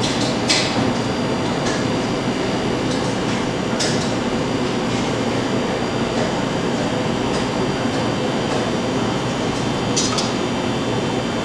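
Steady rushing background noise with a few light clicks and clinks of kitchen utensils against bowls and plates. The loudest click comes about half a second in, and another near the end.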